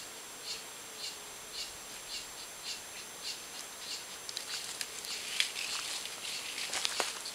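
Short high chirps repeating about twice a second over a steady high-pitched drone. From about four seconds in, crackling rustles of dry leaf litter take over, with a sharp snap near the end.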